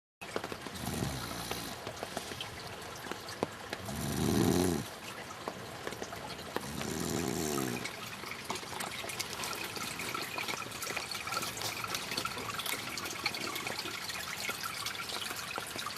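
Heavy rain pattering and dripping steadily, a dense hiss of many small ticks. Three brief louder low sounds come about one, four and seven seconds in, the middle one the loudest.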